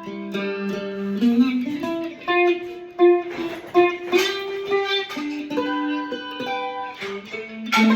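A Loar 310 electric mandolin and a guitar play a blues in G: picked single-note lines over ringing notes, with a rising slide a little over a second in.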